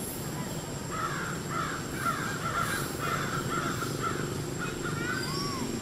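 Animal calls: a rapid string of short, high, wavering calls, then one arched call near the end, over a steady low background noise.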